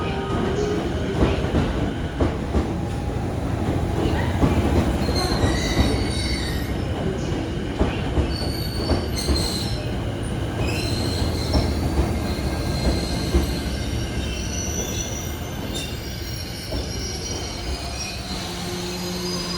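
211 series electric multiple unit rolling into a station and braking, with on-and-off high-pitched wheel squeal and clicking over rail joints above a low running rumble. It quietens as the train slows, and a steady low hum comes in near the end.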